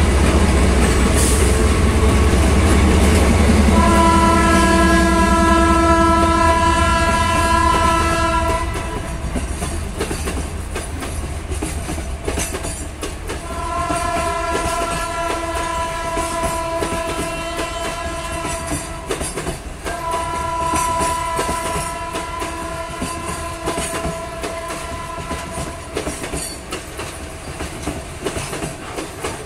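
A loaded freight train passing close by. Diesel locomotives give a heavy rumble for the first several seconds, then loaded hopper wagons roll past with wheel clatter over the rail joints. A train horn sounds three long steady blasts: about four seconds in, around fourteen seconds, and around twenty seconds.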